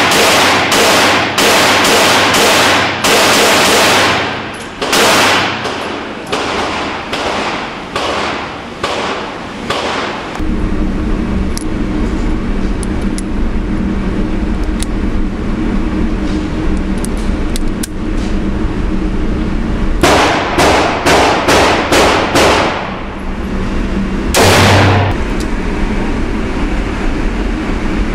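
Handgun shots at an indoor range, sharp and echoing, in quick strings through roughly the first ten seconds. A stretch of low steady hum with faint clicks follows as a revolver is handled, then another quick string of about seven shots and a single loud shot.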